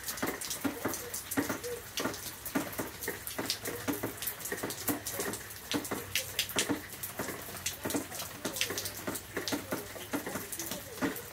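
Rain falling, its drops splashing close by on wet ground, puddles and the patio as a dense, uneven run of separate sharp ticks over a steady hiss.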